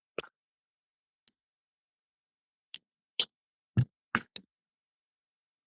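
About half a dozen sharp, irregular clicks and taps from small laptop parts being handled and fitted during reassembly.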